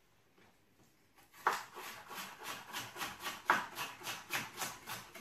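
Kitchen knife slicing a red pepper into thin strips on a wooden cutting board: quick, even strokes about four a second, starting about a second and a half in.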